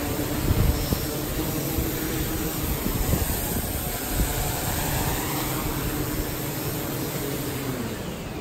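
Gannet Pro waterproof quadcopter drone's propellers humming steadily as it hovers low over the water, over a wash of wind noise. Near the end the hum drops in pitch as the drone settles down toward the water surface.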